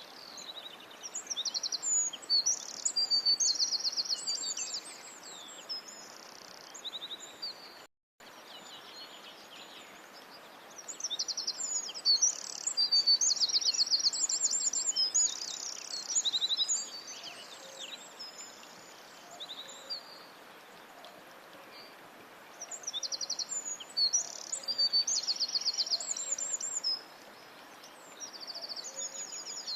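Songbirds singing in a forest soundscape: bouts of high chirps and fast trills from several birds over a steady faint hiss. The sound cuts out for an instant about a quarter of the way through.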